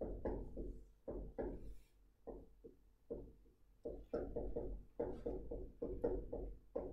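Quick, irregular knocks and taps, a few early on, then bunched several to a second over the last few seconds.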